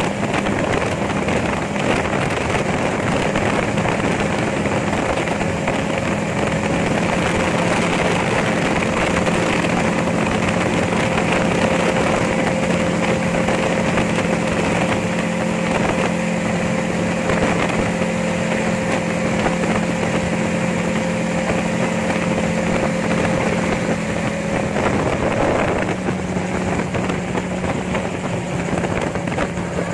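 Gyrocopter engine and propeller droning steadily in flight, with wind rushing over the open cockpit and the microphone. About five seconds before the end the drone's pitch dips briefly and settles at a slightly different note, a change in engine speed.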